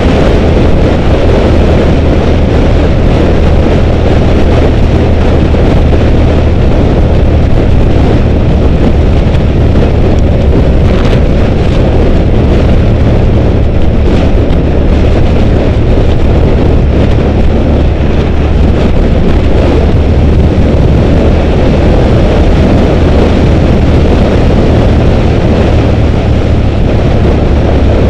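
Heavy, steady wind noise on the microphone of a moving 2005 Suzuki SV650, with the bike's 645 cc V-twin engine running at an even cruise underneath.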